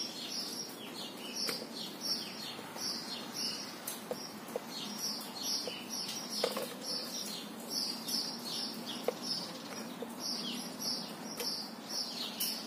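Small birds chirping over and over, short high falling notes in quick clusters, busiest at the start and again after about ten seconds. A few faint clicks and knocks come from the camera being moved and set down.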